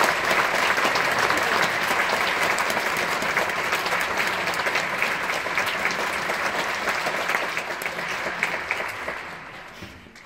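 Audience applauding, the clapping fading away over the last two seconds.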